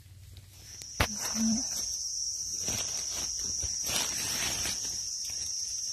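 A steady high-pitched insect drone starts just before a second in and carries on, over scattered rustling in leaf litter, with one sharp click at about a second.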